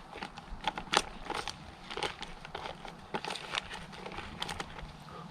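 Foil freeze-dried meal pouch crinkling and crackling as it is handled and sealed, in a string of irregular small clicks.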